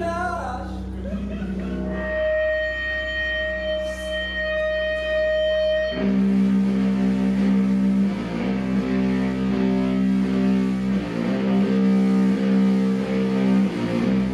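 Slow, droning doom/stoner rock with electric guitar. A single high note is held for about four seconds, then about six seconds in a heavy low chord comes in and rings on.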